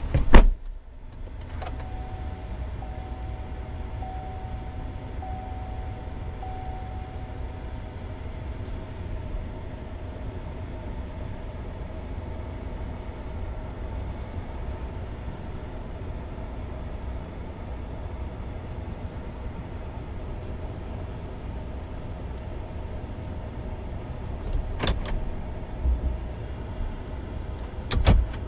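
The GMC Sierra's 5.3-litre V8 idling steadily, heard from inside the cab. A door shuts with a loud thump right at the start, then a warning chime sounds about five times at an even pace. There are a couple of short knocks near the end.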